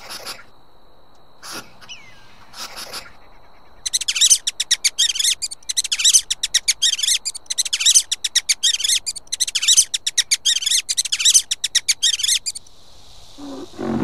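A few short hisses from an Argentine red tegu. Then, for about eight seconds, African grass rat chirps in repeated bursts of very rapid, high, clicking squeaks.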